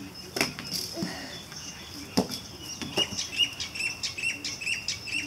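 A small bird chirping in a quick run of short high notes, starting about halfway through, with a few sharp knocks before it.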